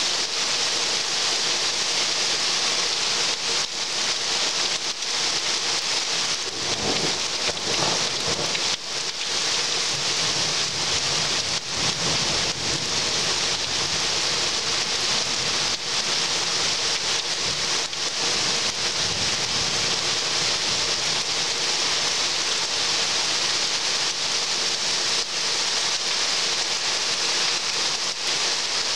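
Heavy thunderstorm rain pouring down, a steady dense hiss. A low rumble swells and fades about a quarter of the way through.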